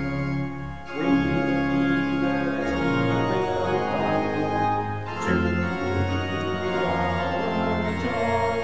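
Organ playing slow, sustained chords that move to a new chord every two seconds or so.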